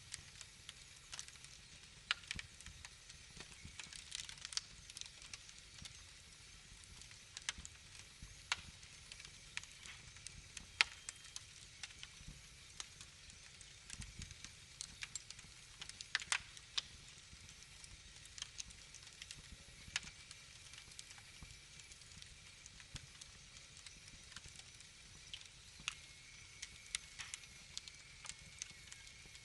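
Wood fire crackling in a fireplace: irregular sharp pops and snaps over a faint steady hiss.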